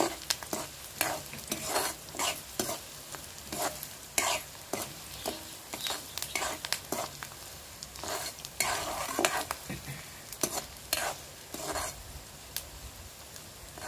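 Chopped onions and garlic sizzling in hot oil in a metal kadhai while a metal spoon stirs and scrapes them around the pan in short strokes about twice a second. This is the onions being fried for the tempering (phodni).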